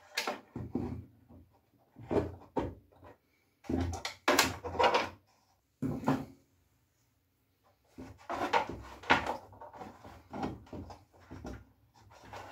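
Handling noise from a carbon-fibre RC boat hull being shifted on a wooden workbench while wires and plugs are fitted inside it: scattered clicks, taps and knocks, with a pause of about two seconds past the middle.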